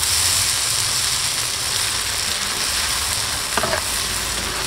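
Chopped long beans and chillies sizzling as they stir-fry in an earthenware wok, turned with a perforated metal spatula. A few sharp clicks of the spatula come about three and a half seconds in.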